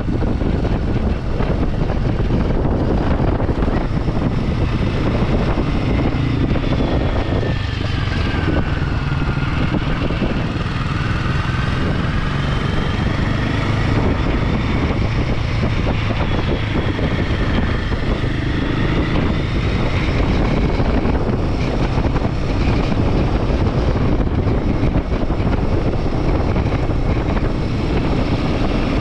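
Royal Enfield Himalayan 450's single-cylinder engine running while the motorcycle is ridden, under a steady rush of wind and road noise. Its pitch rises and falls through the middle as the throttle changes.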